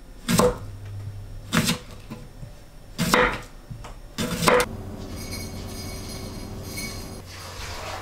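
Knife slicing through a cucumber and knocking on a wooden cutting board, four crisp chops about a second and a half apart.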